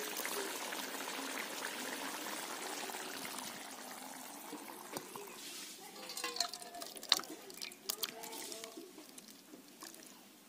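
Curry simmering in an iron kadai with a steady hiss, then thick curry poured from the kadai into a steel bowl, with sharp metal clinks of pan against bowl, the loudest about seven seconds in.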